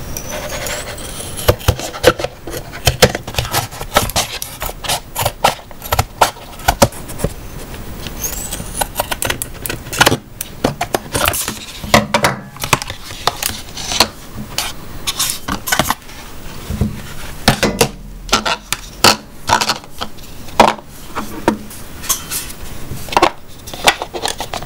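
Scissors snipping through a thin plastic container, with sharp clicks and crackles, and the cut plastic rubbing and crinkling as it is bent and handled. A couple of brief rising squeaks, near the start and about eight seconds in.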